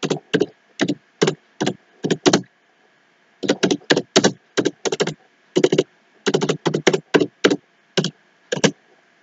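Typing on a computer keyboard: quick runs of key clicks, with a pause of about a second some two and a half seconds in, the last keystroke shortly before the end.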